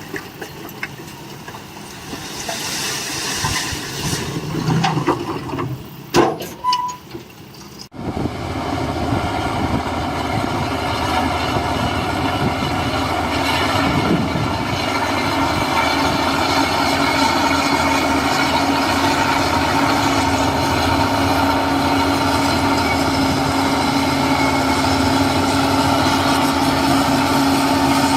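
Heavy construction machinery: uneven clatter with a few sharp knocks, then from about eight seconds in a heavy diesel engine running steadily under load.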